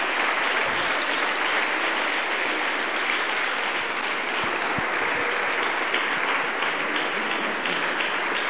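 Lecture-hall audience applauding steadily with many hands clapping at the close of a talk.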